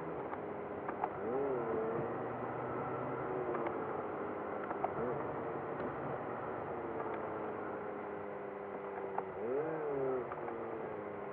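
A car's engine and road noise heard from inside the cabin, played back at triple speed so it sounds pitched up. The engine tone holds steady with a few brief swells in pitch.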